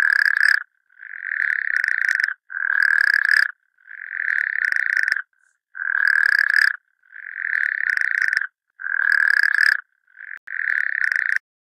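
Frog croaking: a run of eight croaks, each about a second long and steady in pitch, with short gaps between.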